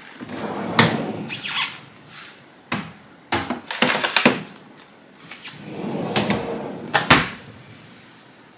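A refrigerator's pull-out vegetable drawer sliding open about a second in, a plastic rice container inside being gripped and knocked about with a few sharp clacks, then the drawer sliding shut with a thud about seven seconds in.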